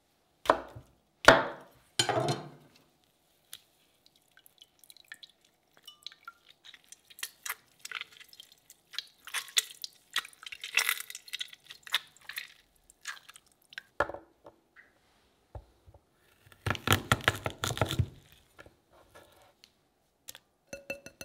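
Ingredients being added by hand into a glass blender jar of oil: a few sharp knocks near the start, then a stretch of small crackles and drips, and a denser loud cluster of knocks about two-thirds of the way through.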